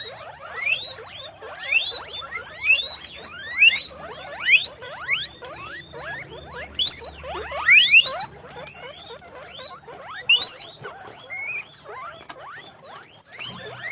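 Several guinea pigs wheeking: a chorus of overlapping short squeals that each sweep upward in pitch, with a louder call roughly every second.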